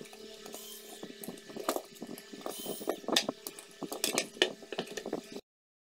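Scattered clicks and knocks of hands handling an opened UPS inverter's plastic casing and circuit board, over a faint steady hum. The sound cuts off abruptly near the end.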